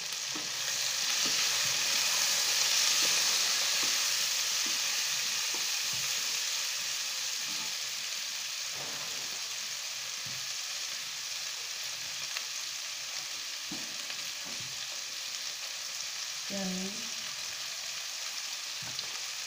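Chopped flat beans (sheem) sizzling in hot oil in a non-stick kadai, a steady hiss that is loudest in the first few seconds and slowly eases off, with a few faint taps of the wooden spatula as they are stirred.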